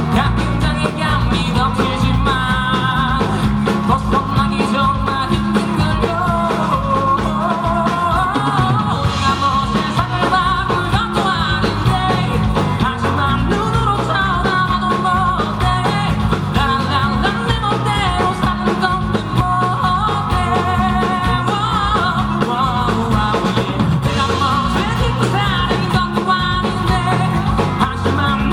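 Live pop-rock band music with a steady beat and a melodic lead line wavering over it.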